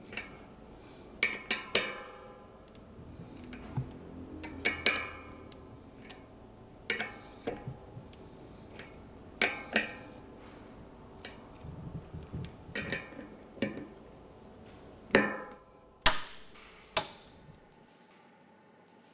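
Sharp metallic clicks and clinks from a torx driver and then a torque wrench on the steel screws of a bicycle disc brake rotor, as the screws are tightened in a star pattern to 6 Nm. The clicks come in small clusters every few seconds, and the loudest come near the end.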